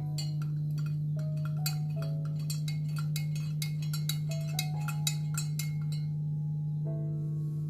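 Background music: bell-like mallet notes changing in steps over a dense run of light percussive clicks that stops about six seconds in, with a steady low hum underneath.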